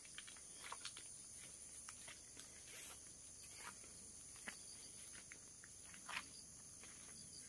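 Faint, steady high-pitched chirring of crickets, with scattered light footsteps crunching on gravel and grass.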